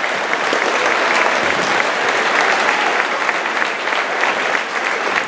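A large crowd applauding steadily, hundreds of people clapping at once.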